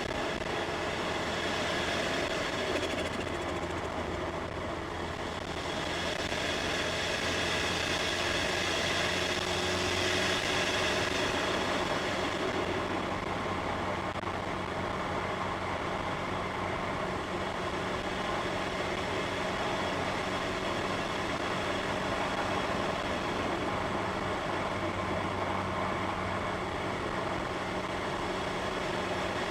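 Turbocharged Mini Cooper S heard from inside the cabin, driving at a steady pace: a low engine drone under steady road and tyre noise.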